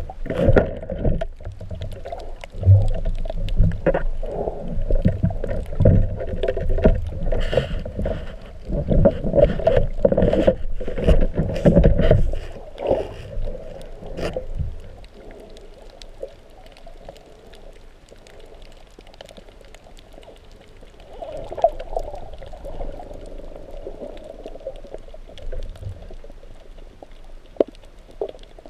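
Underwater water noise picked up through a GoPro housing while a diver swims. For about the first fifteen seconds it is loud water rushing and knocking against the camera, then it drops to a quieter hiss with scattered faint clicks.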